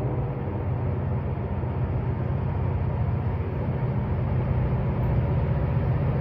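Diesel locomotive engines of an approaching train, a low, steady drone.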